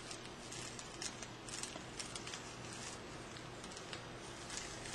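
Fan-folded pattern tissue paper being pressed and shaped by hand into a round flower: faint, irregular crinkles and small paper clicks.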